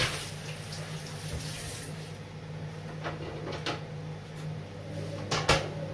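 Kitchen tap running into a stainless-steel sink, shut off about two seconds in, then a few knocks and clatters of handling at the sink, the loudest near the end. A steady low hum runs underneath.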